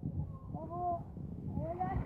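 Two short wordless vocal calls, each rising then falling in pitch, over a low rumbling with scattered knocks.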